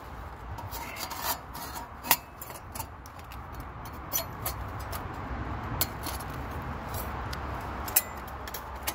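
Flat-pack steel firebox stove being slotted together by hand: metal panels rubbing and scraping against each other, with a handful of sharp metal clinks spread through.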